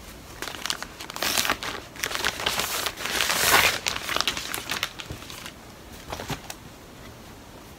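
Frosted plastic garment bags crinkling and rustling as they are handled, along with the swish of folded pajama cloth. It comes in irregular bursts, is loudest a little past the middle, and dies down after about five seconds.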